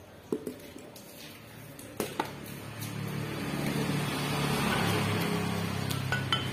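A few sharp metal clicks and taps as a steel camshaft is handled against an aluminium cylinder head, then from about halfway a motor vehicle engine running steadily nearby grows louder and becomes the loudest sound.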